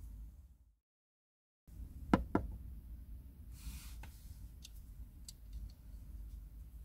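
Screwdriver clicking and knocking against the plastic tailgate trim while the trim panel's screws are undone: two sharp knocks a couple of seconds in, then a short rustle and a few light ticks, over a low rumble.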